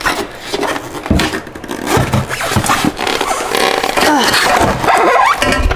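Styrofoam packing squeaking and scraping against a cardboard box as it is pulled off. A run of shrill squeals rises and falls in pitch through the second half.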